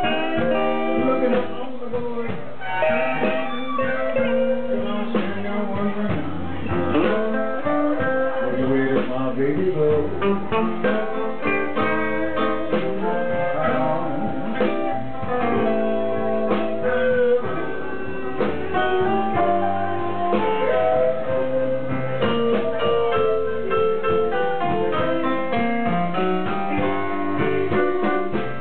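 Live blues band playing a slow blues, with guitar and piano over a steady beat.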